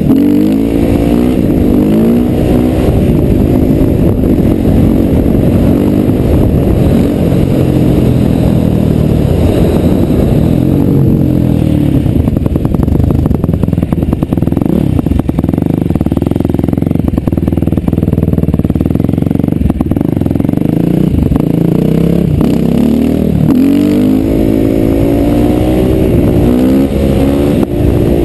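Husqvarna supermoto motorcycle engine heard on board, revving up and down through the gears. It settles to a lower, steadier note in the middle, then revs hard again near the end as the front wheel lifts into a wheelie.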